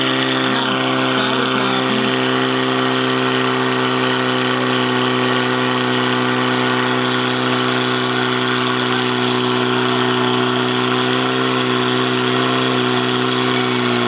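Fire pump engine running steadily at constant high speed, pumping water through the attack hoses to the nozzles. It is a loud, even engine drone with an unchanging pitch.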